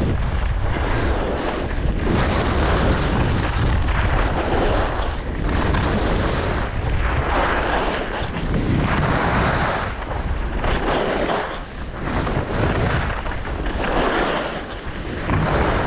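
Wind rushing over a GoPro's microphone while skiing downhill, with skis hissing and scraping on the snow in swells that come and go every second or two.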